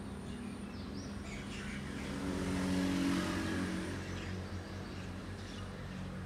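A motor vehicle's engine hum swells and fades as it passes, loudest about three seconds in, with small birds chirping briefly over it.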